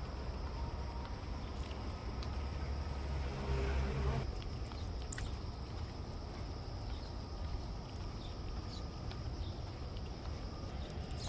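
Outdoor background: a steady low rumble that swells briefly about three to four seconds in, under a thin, steady, high insect chirring.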